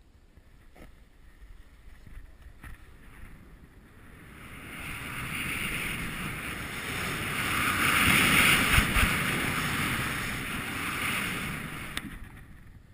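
Splitboard hissing and scraping over snow on a steep descent, with wind rushing on the GoPro's microphone. It is faint at first, swells from about four seconds in to its loudest around eight seconds, then fades near the end.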